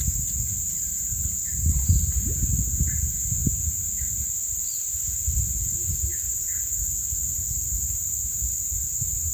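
Steady high-pitched drone of forest insects, with a few short bird chirps and a low rumble underneath.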